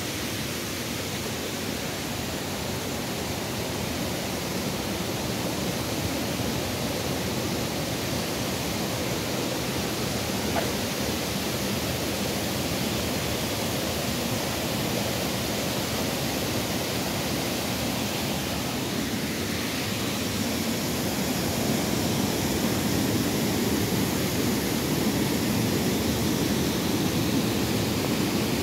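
Fast-flowing, swollen stream rushing over low cascades and a small waterfall: a steady noise of running water that grows somewhat louder in the second half.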